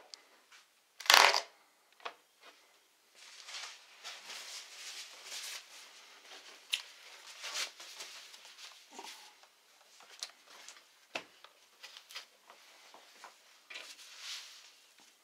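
Small tools and hands working on a Lenovo Legion Y720 laptop's plastic case: one loud click or knock about a second in, then irregular scraping and rubbing with scattered sharp clicks.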